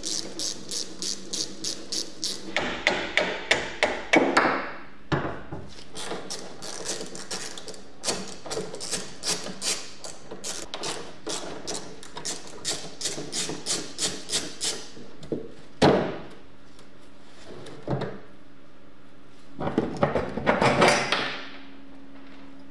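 Hand ratchet wrench clicking in quick runs, several clicks a second, as rusty bolts on a steel trike frame are undone. Between the runs there is a rasping stretch as a bolt turns. Near the end come a couple of sharp knocks and a scraping rattle as the plastic seat shell is handled.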